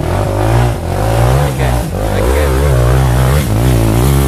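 Trail motorcycle engine revving hard under load as it climbs a steep dirt slope, its pitch rising and falling over and over as the throttle is worked.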